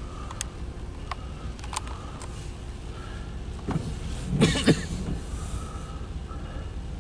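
A windshield wiper makes one swishing sweep across the rain-wet windshield about four seconds in, over the steady low rumble of the car's cabin. A few sharp ticks come in the first two seconds.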